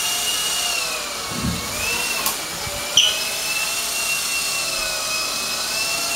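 Small battery-powered remote-control helicopter's electric motor and rotors running with a high whine, the pitch dipping and rising slightly as the throttle is worked to hold it in the air. A short click comes a little after two seconds in, and a brief sharp chirp, the loudest moment, about three seconds in.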